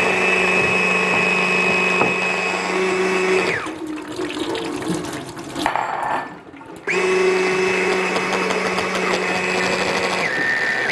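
Electric mixer beating butter, powdered sugar, eggs and vanilla into cake batter: a steady motor whine that winds down and stops about three and a half seconds in. It starts again about three seconds later and drops to a lower pitch near the end.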